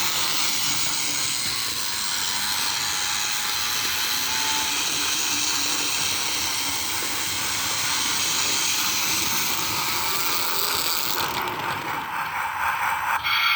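Battery-powered Plarail Steam and Sound D51 toy steam locomotive running on plastic track: its small electric motor and gearbox whirring steadily. About eleven seconds in, the sound changes and the top end drops away.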